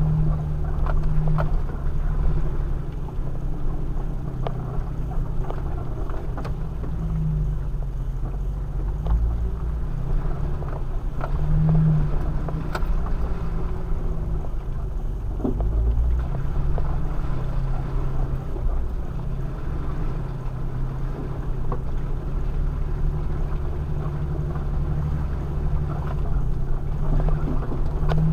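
Off-road vehicle's engine running low and steady as it crawls over a muddy, rutted dirt trail, heard from inside the cabin, swelling now and then, with scattered knocks and rattles as the vehicle jolts over the ruts.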